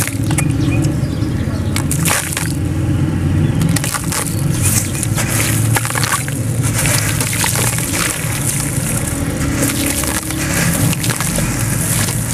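A wet, gritty sand-and-cement chunk crushed and crumbled by hand into a shallow pool of water in a plastic tub: irregular crunching and gritty crackling throughout.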